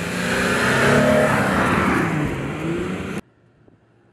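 Jeep Gladiator Mojave pickup's engine revving hard as the truck slides through loose sand, its tyres throwing sand with a broad hiss. The engine note rises near the end and cuts off abruptly about three seconds in, leaving only faint background.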